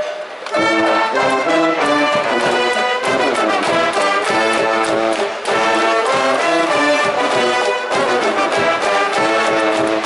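High-school cheering brass band in the stands playing a fight song: trumpets and trombones over a steady beat, starting about half a second in.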